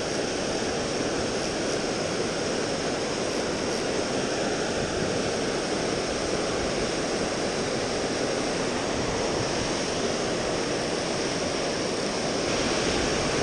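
Water rushing down a concrete lake spillway into a churning pool: a steady roar of moving water, a little louder near the end.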